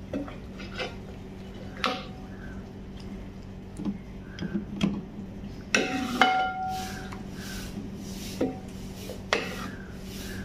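Steel ladle scraping and clinking against a large metal cooking pot and a clay serving bowl as chicken curry is ladled out: a string of separate knocks, with one ringing metal clang about six seconds in, over a low steady hum.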